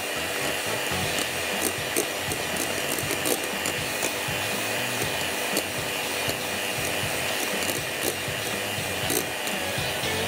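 Electric hand mixer running steadily at a raised speed, its beaters whipping cream in a bowl toward soft peaks, with scattered light ticks.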